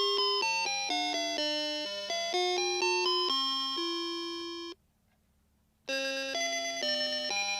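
Small World Worker DX karakuri alarm clock playing its chime melody: a quick run of bell-like notes, each struck and fading. About five seconds in it breaks off for about a second, then the tune starts again.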